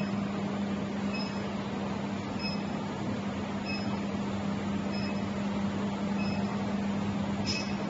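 LH MHG 80 portable induction heater running with its copper coil around a steel cylinder: a steady hum and a short high beep repeating about every 1.2 seconds while it heats. A brief click near the end.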